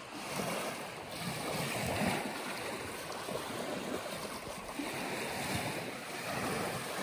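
Small waves lapping steadily on a sandy shore.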